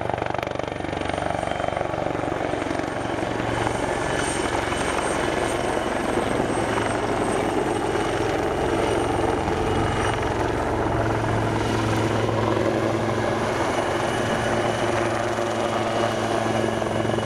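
AgustaWestland AW159 Wildcat helicopter flying past close by. Its main rotor beat runs steadily over a high whine from its twin turboshaft engines.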